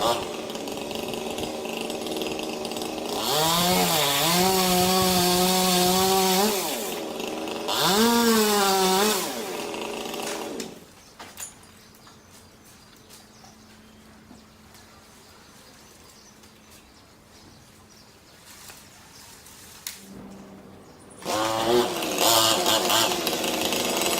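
Chainsaw engine running, revved up twice to a higher, steady pitch and dropping back between, then stopping about eleven seconds in. After about ten quieter seconds a chainsaw runs again near the end.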